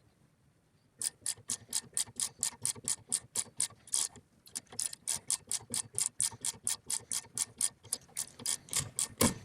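Hand ratchet clicking as it is swung back and forth, about four clicks a second, starting about a second in, with a brief pause near the middle.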